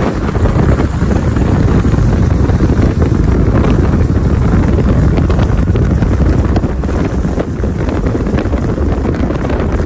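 Steady wind noise from rushing air buffeting the microphone at an open car window at highway speed, mixed with the car's road noise.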